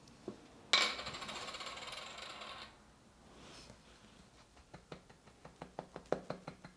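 Cap twisted off a bottle of oyster sauce with a rasping crackle lasting about two seconds. Then, as the bottle is tipped over a stainless steel bowl, comes a run of quick clicks, about four or five a second and growing louder, while the thick sauce glugs out.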